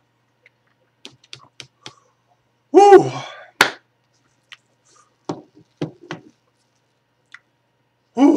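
A man's pained, wordless exhale: one loud 'whoo' with falling pitch about three seconds in, from the burn of ghost chili peppers. A sharp click follows it, with a few small clicks and taps scattered before and after, and another 'whoo' starts right at the end.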